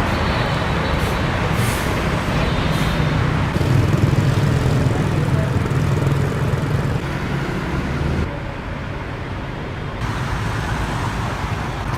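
Road traffic noise with heavy truck engines running, the sound changing abruptly a few times.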